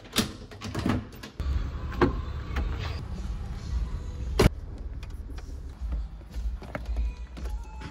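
Door clicks and knocks: a door latch clicks near the start, then a Porsche car door is pulled shut with a sharp thud about four and a half seconds in. Smaller clicks and a low rumble run under it.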